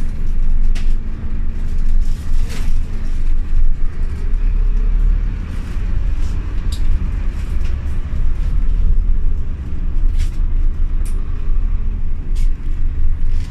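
Steady low rumble of a Scania OmniLink city bus heard from inside while it drives, engine and road noise together, with a few short clicks and rattles.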